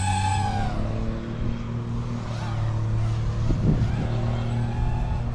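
A steady low mechanical hum, with a brief whine in the first second that rises and falls.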